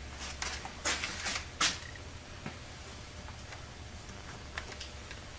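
Faint handling noises of automatic-transmission parts: four short scrapes and rustles in the first two seconds, then a few soft ticks, over a steady low room hum.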